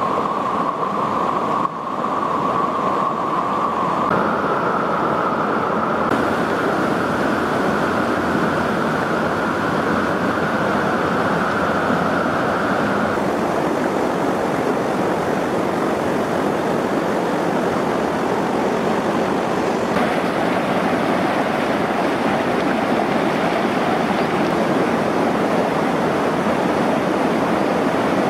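Fast mountain river rushing over rocks in white-water rapids: a steady, loud rush of water, with a brief dip about two seconds in.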